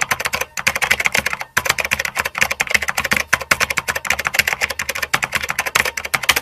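Rapid keyboard typing: a fast, even run of key-press clicks, close to ten a second, with one short pause about one and a half seconds in.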